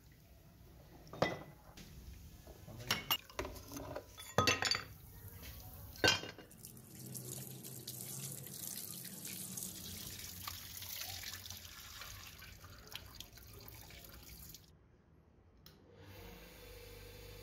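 Metal juicer parts clink several times as they are lifted out of a tub of liquid with pliers and set down. Then a steady hiss of water spraying over the parts to rinse them. Near the end, after a brief quiet, an electric bench buffer's motor starts to hum steadily.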